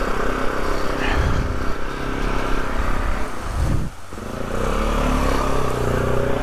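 Polaris off-road vehicle engine running hard under load. It drops off briefly about four seconds in, then revs back up.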